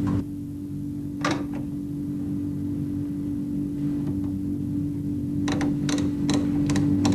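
A steady low hum with sharp clicks: one about a second in, then a quick run of clicks near the end.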